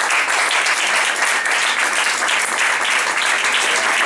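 Audience applauding steadily: dense, even hand-clapping with no break.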